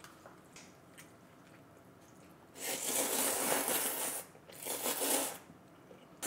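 A person slurping yeolmu noodles from the broth in two long slurps. The first starts about two and a half seconds in and lasts over a second; the second is shorter.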